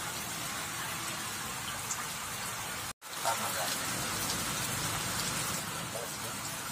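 Heavy rain pouring steadily onto a flooded road, an even hiss of rain striking standing water, with a momentary break in the sound about three seconds in.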